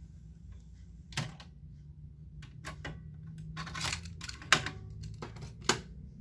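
Irregular sharp mechanical clicks and clunks of a cassette deck's buttons and tape mechanism being worked, about eight in all, the loudest about four and a half seconds in, over a steady low hum.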